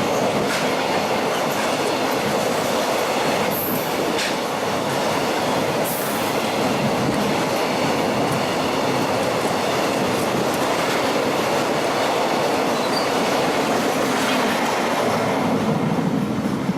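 A freight train running through the station: steady wheel-on-rail noise with a few sharp clicks in the first few seconds.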